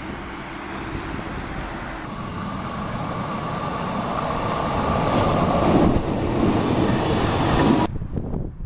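Red Rhaetian Railway electric train approaching along the track. Its running noise grows louder, with a steady whine, and cuts off suddenly near the end. Before it, for about the first two seconds, there is quieter street noise.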